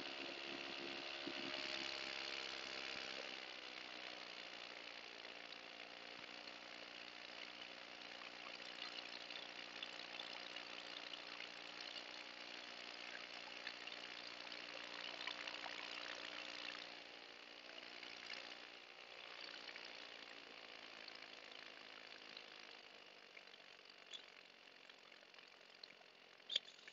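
Paramotor engine running at low throttle, its pitch sinking a little in the first few seconds and then holding steady, with a hiss of wind over it.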